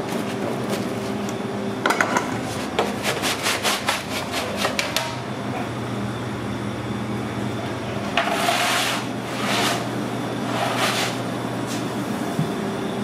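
Pizzeria kitchen with a steady machine hum. About two seconds in, a quick run of clicks and knocks lasts for a few seconds. Then come three short rasping scrapes of a wooden pizza peel sliding across the stone floor of a deck oven.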